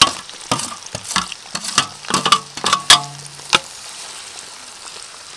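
Sliced red onions tipped into hot oil in a metal wok and stirred with a wire strainer: a string of metal clinks and scrapes over the first three and a half seconds, then a steady frying sizzle.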